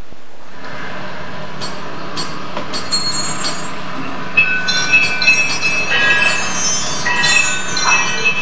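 Recorded sound cue played over the stage loudspeakers: a steady rushing noise with high metallic ringing and squealing tones over it, which grow busier toward the end.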